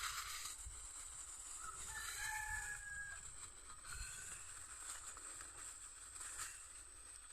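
A rooster crowing faintly once, about two seconds in, over a steady high-pitched hiss.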